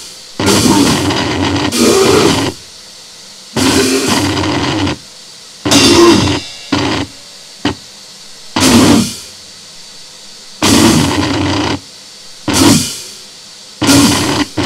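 Noisecore: about ten short blasts of harsh, distorted noise, each lasting a fraction of a second to about a second and a half, broken by abrupt gaps of low hiss.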